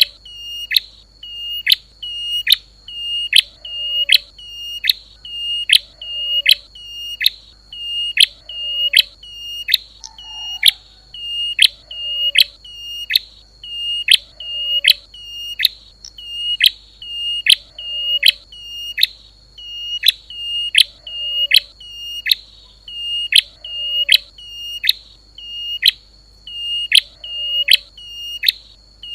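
Recorded lure call of the prenjak lumut / klawu, a small warbler: sharp, high chirps repeated rapidly and evenly, about two to three a second, over a constant high whine.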